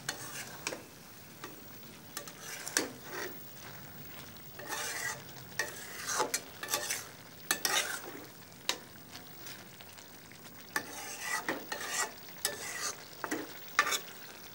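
A spatula scraping and stirring a Malabar spinach and dried-fish curry around a metal karahi in a dozen or so irregular strokes. The curry sizzles faintly in between.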